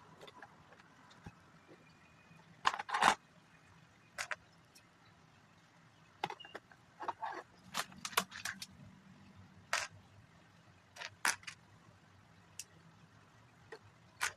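Plastic Lego pieces clicking and rattling as they are handled and snapped together, in scattered sharp clicks with a busier run of them in the middle.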